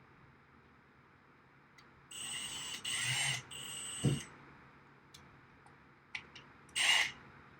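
Power drill run in short bursts: three quick back-to-back runs with a steady high motor whine, a knock, a few clicks, then one more brief run near the end, as it drills or drives a screw into a rack rail.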